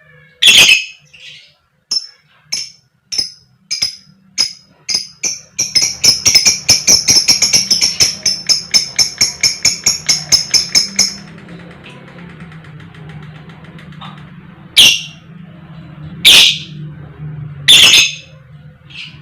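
Fighter lovebird's 'koek koek' calls. A loud call opens, then a series of short calls speeds up into a fast run of chirps, about four or five a second, for roughly five seconds. Three loud single calls follow near the end.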